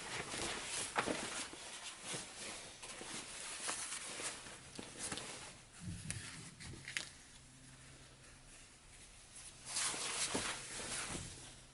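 Fabric rustling and crumpling as a lined jacket is handled and pulled through an opening in its lining to turn it inside out. The rustles come unevenly, with a louder stretch near the end.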